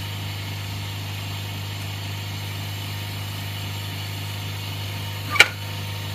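Steady drone of the vacuum pump that holds the screen on the LCD-repair machine's plate. A single sharp click comes about five seconds in.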